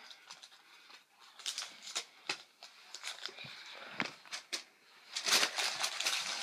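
Paper rustling and crinkling with small clicks as a folded paper slip is drawn from a pile and opened, with a louder stretch of rustling about five seconds in.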